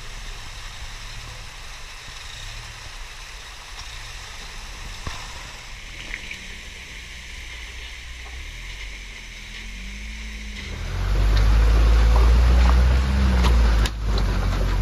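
Mazda B2600i pickup's engine working at low revs, its pitch rising and falling as it crawls up a rocky waterfall, with creek water running. About eleven seconds in it turns to a much louder low rumble with a few sharp knocks.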